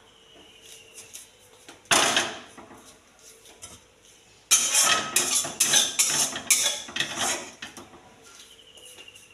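Steel cookware and utensils clattering: one loud clank about two seconds in, then a quick run of metal knocks and scrapes from about four and a half to seven and a half seconds.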